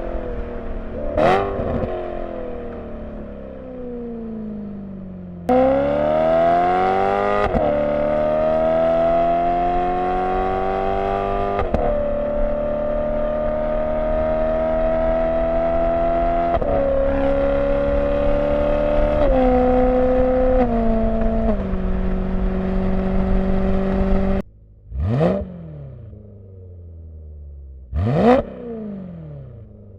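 BMW E92 M3's V8 through a Borla ATAK exhaust with venturis fitted, heard from a microphone on the car while driving. The engine pulls hard and climbs in pitch, then the pitch steps down several times as it shifts up through the gears; in the last few seconds it falls quiet off the throttle with a few quick blips of revs.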